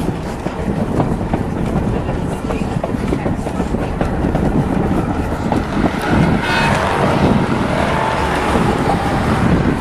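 A steam train's passenger cars rolling along the track: a steady rumble with the click of wheels over rail joints. A higher ringing tone joins about six and a half seconds in and lasts a few seconds.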